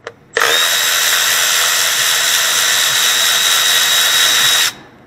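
Milwaukee M12 Fuel cordless electric ratchet running steadily for about four seconds, spinning out an ignition-coil hold-down bolt, then stopping abruptly. Two small clicks just before it starts.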